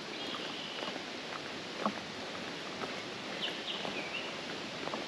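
Footsteps at a steady walking pace on a dirt-and-gravel trail, with a few faint high-pitched calls about half a second in and again between three and four seconds.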